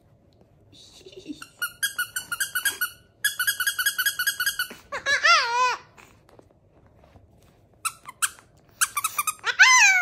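A plush squeaky dog toy is squeezed fast and repeatedly, giving two runs of quick high squeaks. A long-haired chihuahua answers with a wavering high howl around the middle and a falling howl near the end.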